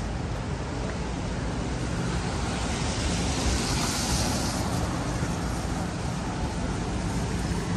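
Road traffic: a steady low rumble of engines, with a hiss that swells and fades for about a second and a half near the middle.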